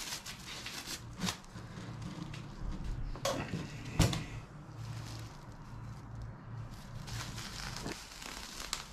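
Thin black plastic-bag sheeting crinkling and rustling as it is handled and split into two pieces, with a few sharp clicks.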